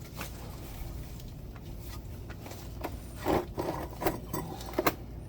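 A socket ratchet being worked on the oil drain plug, giving a run of irregular clicks and knocks that starts about three seconds in, over a steady low hum.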